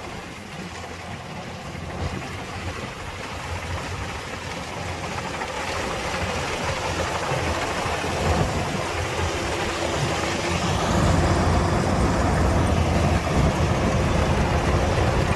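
Diesel engine of a Kubota DC-105X combine harvester running steadily, growing louder throughout.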